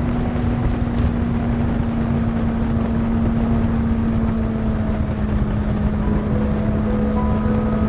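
Motorcycle engine running at a steady cruise, a constant drone that holds one pitch, under a heavy rush of wind and road noise.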